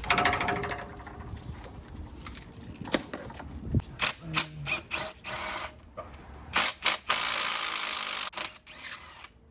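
Hand tools at work on an engine: ratchet clicking and metal clanks as bolts are loosened, with a harsh two-second burst of noise near the end.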